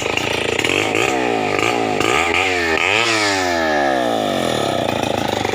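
Stihl 070 two-stroke chainsaw revved up and down a few times from idle. The revs then fall away over a couple of seconds back to a rough idle.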